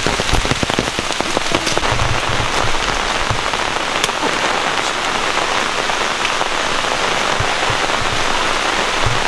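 Steady rain falling, a dense hiss sprinkled with the ticks of individual drops, with a few low thumps about two seconds in and again near the end.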